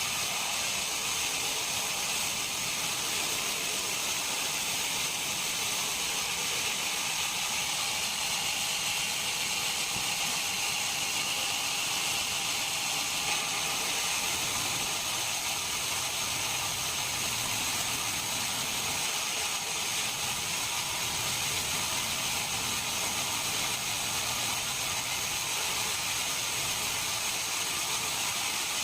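Sawmill machinery running steadily: an unbroken hiss and whir with a faint high, even whine over it.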